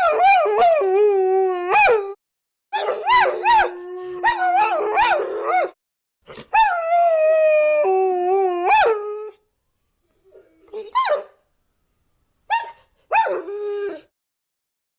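Dogs howling in long, wavering calls mixed with short yips, in several bouts with brief pauses between them. The later bouts are weaker, and the howling stops shortly before the end.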